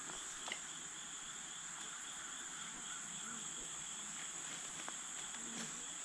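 Steady, high-pitched insect chorus droning without a break, with a faint click about half a second in.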